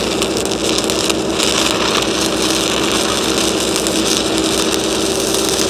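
Stick-welding arc crackling and hissing steadily as a cellulose-coated electrode burns along a steel pipe joint, with a steady engine hum underneath.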